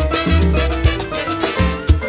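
A Cuban timba band playing salsa live, with a pulsing bass line under sharp, regular percussion hits.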